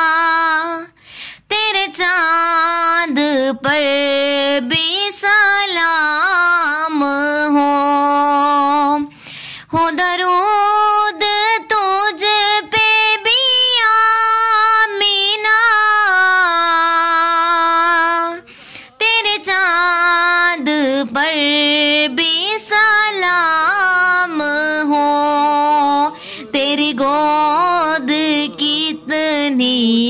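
A high voice singing a naat, with long held, wavering notes and short breaks about a second in, about nine seconds in and about eighteen seconds in.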